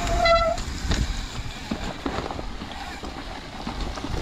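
Mountain bike rolling down a wet, muddy trail. Wind buffets the microphone while the bike rattles and knocks over bumps. A brief high squeal comes right at the start.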